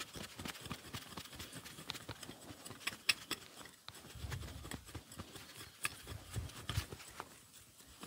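Garden soil being loosened by hand: faint, irregular scratching and small clicks, with a few soft thumps.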